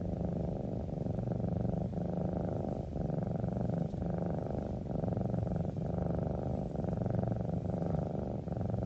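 A sleeping cat purring steadily: a continuous low rumble that dips briefly about once a second as it switches between breathing in and out.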